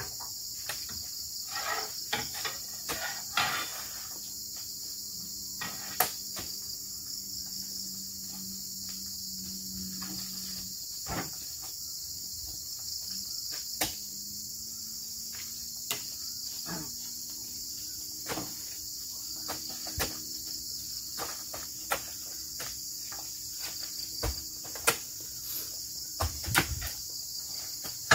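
A steady high-pitched insect chorus, broken every second or two by irregular sharp knocks and thuds as oil palm fruit bunches are speared with a spike and heaved up into a lorry's wooden-sided bed.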